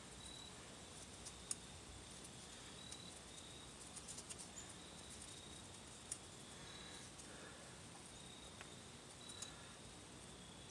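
Near silence: a few soft clicks of small hardware as a washer and nut are fitted onto the throttle body studs, over faint short high-pitched chirps about every second.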